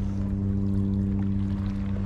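A boat's engine running steadily, a constant low hum that neither rises nor falls.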